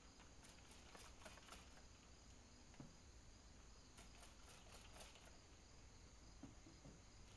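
Hand-pump spray bottle squirting water onto a clay tankard: two quick runs of faint, short hissing spritzes, about half a second in and again about four seconds in.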